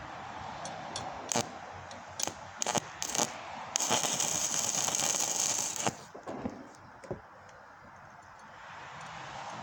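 Stick-welding arc from an E6013 3/32-inch rod at 45 amps DC electrode positive on thin mild steel tubing, laying a tack weld. The rod sputters in a few short bursts as the arc is struck, then burns steadily for about two seconds before cutting off.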